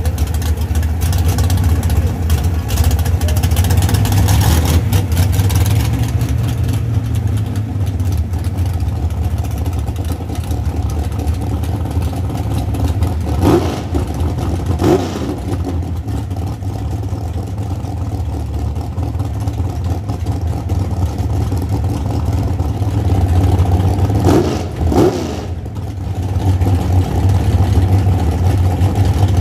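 Drag-racing car engines rumbling steadily, with short revs twice around the middle and twice more near the end.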